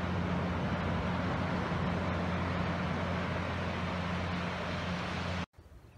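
Boat engine running with a steady low drone over the broad wash of surf; it cuts off abruptly near the end.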